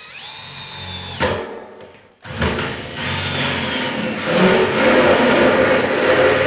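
Cordless drill with a hole saw and pilot bit cutting through the steel wall of a 55-gallon drum. The motor whines up in pitch, gives a sharp knock just over a second in, and stops about two seconds in. It then starts again and grinds on louder through the metal until the saw is all the way through.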